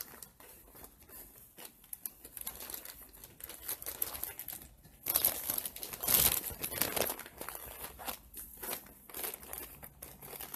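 Plastic packaging crinkling and rustling as a rolled diamond painting canvas is handled, loudest about five to seven seconds in.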